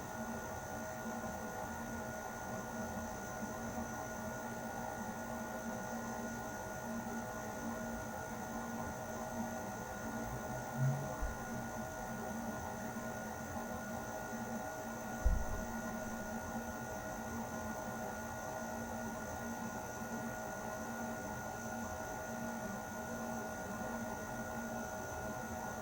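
Air conditioner running steadily: an even airflow hiss with a constant hum and several fixed whining tones. Two brief low thuds about ten seconds in and again a few seconds later.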